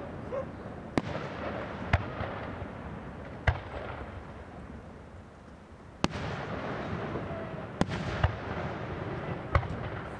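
Aerial firework shells bursting: about seven sharp bangs at uneven intervals, over a steady low rumble.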